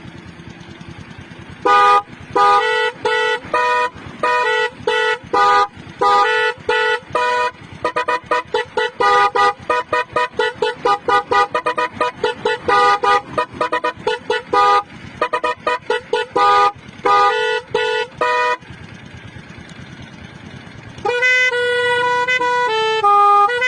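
Basuri multi-tone musical horn playing a telolet-style tune. It starts with spaced blasts of several tones at once, then a fast run of short toots. After a brief pause come longer held notes that step between pitches.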